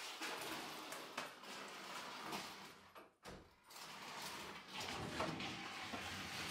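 A large plastic storage tote being pulled out through a doorway and moved across a wooden floor: scraping and rustling with a few knocks.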